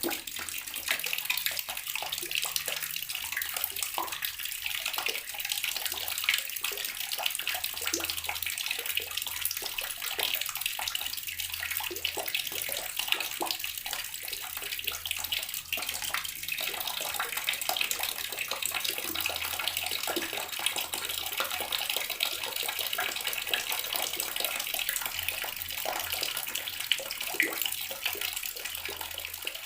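Water running steadily from a tap and splashing into a filling basin or tub, a continuous bright splashing with many small droplet spatters.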